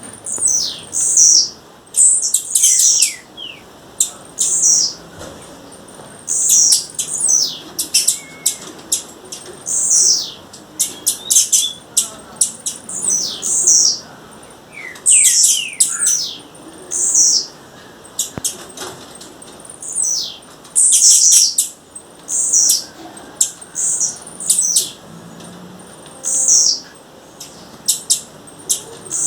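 Blue-black grassquit calling: clusters of sharp, high chirps that drop in pitch, mixed with short clicking notes, repeated every second or two.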